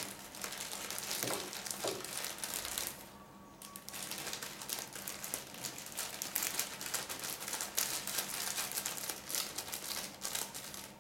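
Thin plastic bag crinkling and rustling as it is handled and herbs are shaken out of it, with a brief quieter pause about three seconds in.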